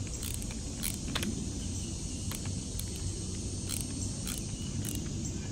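Scattered light clicks and ticks as a pipe clamp on a hose is tightened down, over a steady low background rumble.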